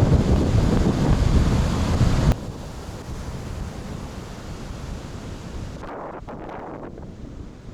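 Stormy wind buffeting the microphone as a heavy low rush, which cuts off abruptly about two seconds in to a quieter steady rush of wind.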